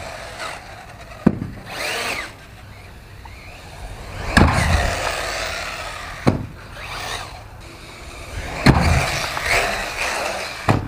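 Electric RC buggy's brushless motor (Arrma Typhon on 4S with a 2150kv motor) whining up and down as it is throttled, broken by several sharp knocks as the buggy lands or hits the ground.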